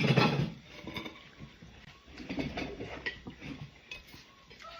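Dishes and cutlery clinking in scattered short knocks, after a brief loud sound at the very start.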